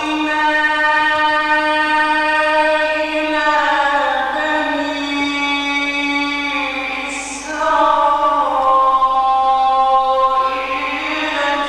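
A man reciting the Quran in the melodic mujawwad style, holding one long ornamented note for about seven and a half seconds, then beginning a new chanted phrase.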